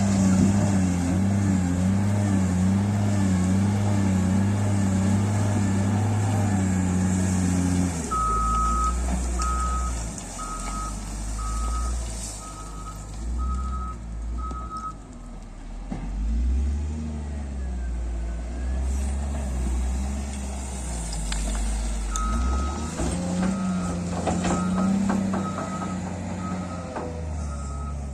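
Heavy construction machine's diesel engine running, with its reversing alarm beeping steadily, about once every 0.8 seconds, in two spells: about eight seconds in, and again past the twenty-second mark.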